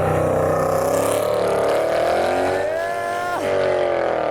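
A car's engine revving hard as it drives through a corner. The pitch wavers and climbs, drops sharply about three and a half seconds in, then the engine pulls again.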